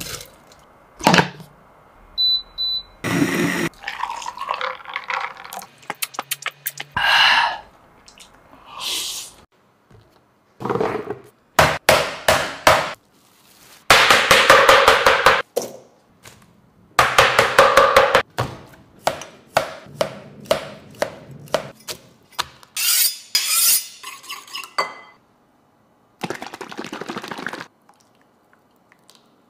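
Food-prep sounds one after another: watermelon chunks knocking into a glass blender jar, then a cleaver chopping cucumber on a plastic cutting board in two fast runs of strokes around the middle, and liquid sauce pouring into a bowl near the end.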